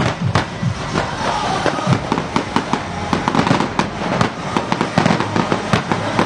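Aerial fireworks display: many sharp bangs and crackles of shells bursting overhead, several a second in an irregular barrage.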